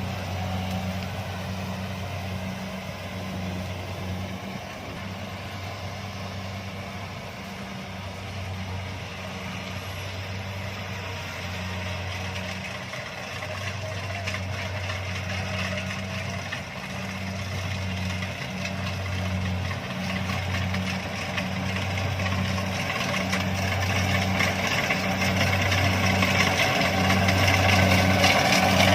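Kubota DC-70 combine harvester's diesel engine running steadily, getting louder over the last ten seconds or so as the machine comes closer.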